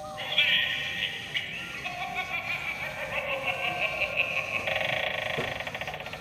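Gemmy animated haunted doorbell prop playing its spooky sound effect through its small speaker: a wavering, voice-like electronic sound that turns into a fast, even pulsing about four and a half seconds in.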